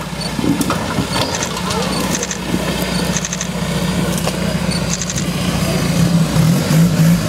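Modified Suzuki Samurai's engine running under load as the 4x4 crawls up a steep dirt slope, the revs rising and falling in the last second or so.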